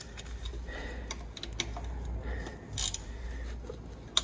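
Light, irregular metallic clicks and taps of a wrench or socket being worked onto a connecting-rod cap nut, with a sharper click near the end, over a low steady hum.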